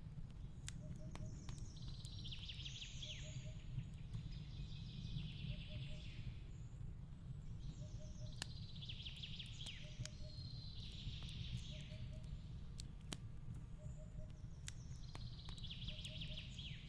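Fireplace crackling with scattered sharp pops over a steady low rumble, while a songbird sings a trilled, falling phrase about every three seconds. A faint low triple note repeats about once a second underneath.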